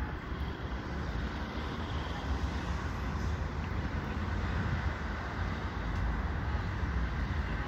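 Steady low rumble and hiss of wind buffeting the phone's microphone, with no distinct events.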